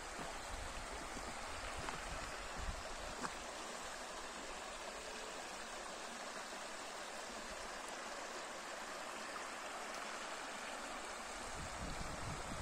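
Shallow river running over flat rock ledges and stones, a steady rushing ripple of water with no break.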